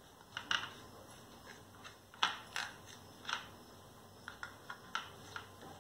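Knife cutting through a tray of set singhara-flour barfi, the blade clicking and tapping against the metal tray in sharp, irregular clicks, the loudest a little over two seconds in.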